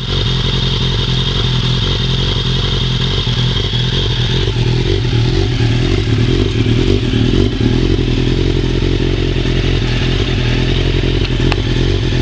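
Suzuki GSX-R motorcycle engine breathing through a Cannon aftermarket exhaust, running at a steady idle.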